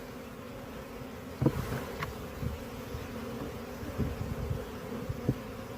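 Honeybees from an opened hive buzzing steadily, a dense hum, with a couple of light knocks from the frames being handled.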